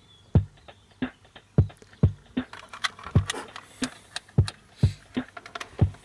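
An uneven series of sharp clicks and knocks, about one to two a second, some carrying a dull low thump.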